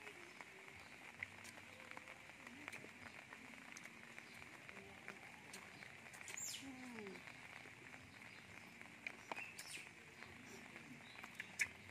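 Quiet outdoor background with a faint steady high hum, and small scattered clicks and rustles of hands eating grilled chicken wings.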